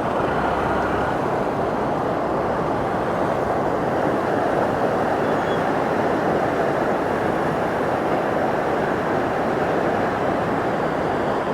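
Floodwater from a reservoir's opened spill gates rushing and falling over a drop, a steady, unbroken noise of heavy water.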